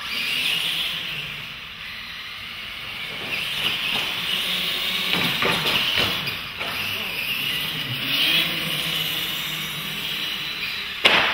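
R/C monster trucks racing on a concrete floor: a steady high whine and hiss of their electric motors, gears and tyres that starts suddenly. There are a few knocks partway through and a sharp knock near the end.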